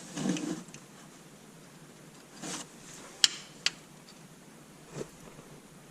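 Workshop handling noises under the hood: a brief rustle, then two sharp clicks about half a second apart, typical of tools being set down or picked up, and a small knock near the end.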